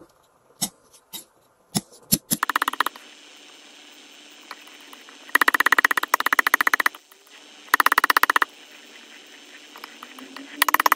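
Steel palette knife smearing and scraping thick paint on paper: a few separate clicks, then four bursts of rapid, even chattering as the blade drags through the paint, each lasting about half a second to a second and a half.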